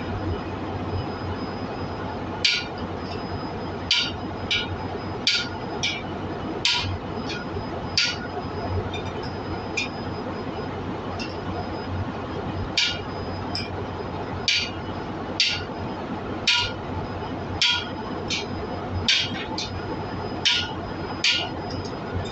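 Hammer blows on a steel driver, seating a new exhaust valve seat insert in a cylinder head: sharp metallic strikes about once a second, with a pause of a few seconds midway. A steady workshop hum runs underneath.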